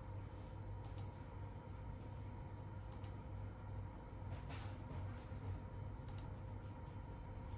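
Scattered light clicks and taps, a few seconds apart with a small cluster near the end, over a steady low hum in a small room.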